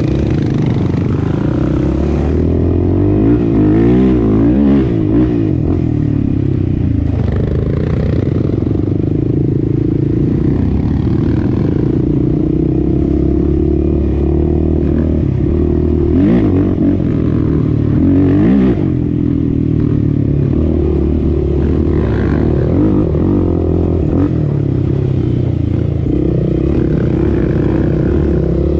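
Sport quad's single-cylinder four-stroke engine running under way, mostly steady, with the revs swinging up and down a few times.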